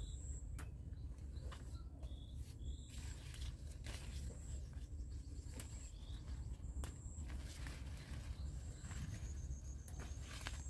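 Yardlong bean vines and leaves rustling as pods are picked by hand, with scattered small snaps and clicks, over a low steady rumble. Short high chirps come and go throughout.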